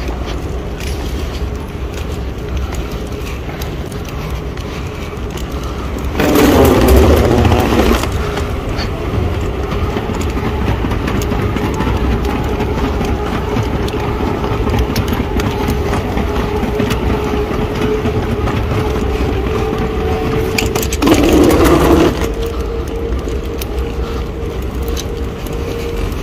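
Airport moving walkway in use, with a steady rumble and a faint hum. Two louder rumbling, scraping passages come about six seconds in and again about twenty-one seconds in.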